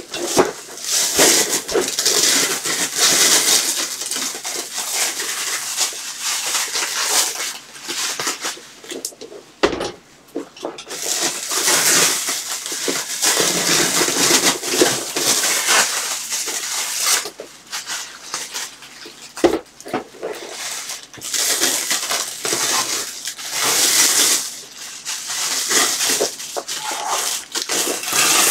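Black plastic wrapping crinkling and rustling in irregular bursts as it is handled, pulled and torn, with a couple of sharp knocks, one about ten seconds in and one near twenty seconds.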